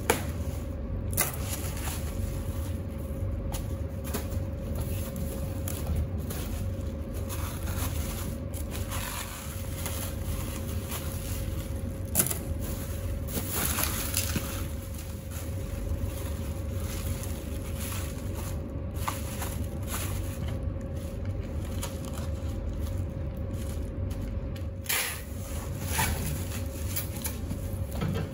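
Parcel packing: bubble wrap and plastic film crinkling and rustling as a box is wrapped, with occasional sharp clicks and knocks, over a steady low room hum.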